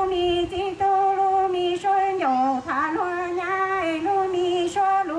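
A woman singing a slow Hmong song into a microphone, amplified through a PA speaker, holding long notes with short breaks between phrases.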